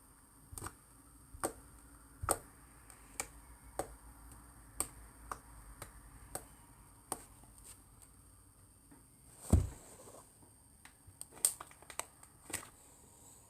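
Slime being squeezed and pressed by hand, giving a string of sharp clicks and pops from bursting air pockets, about one or two a second, with one heavier thump a little past the middle.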